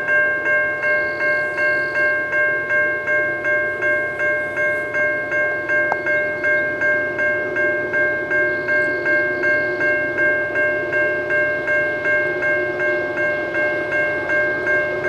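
Railway level-crossing warning bell ringing steadily at about two strokes a second, signalling an approaching train.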